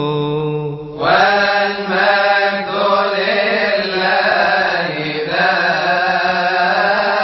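A solo male voice chanting a long melismatic Coptic liturgical melody without clear words: a held note with vibrato breaks off for a breath just before a second in, then a new phrase winds slowly from note to note.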